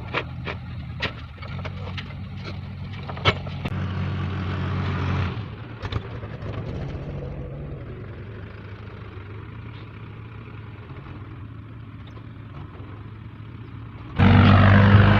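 A vehicle engine runs steadily at idle, with sharp knocks and clicks over it during the first few seconds. It picks up briefly about four seconds in, then settles back. About a second before the end, a much louder steady sound suddenly cuts in.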